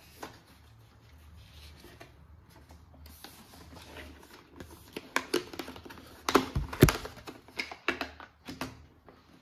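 Close-up handling noise of objects being unpacked: soft rustling, then an irregular run of sharp clicks and taps. The loudest is a pair of knocks a little after the middle.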